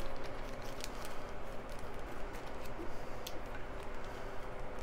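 Light handling noise of a small clear plastic bag being fingered and pulled open, with a few faint ticks and crinkles over a steady low background hum.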